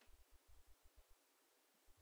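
Near silence: faint hiss with short, irregular low thumps.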